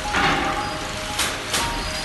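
Pallet processing line running: steady industrial machine noise, with a burst of clatter just after the start and two sharp knocks past the middle as wooden pallets move through the conveyors and cutter heads.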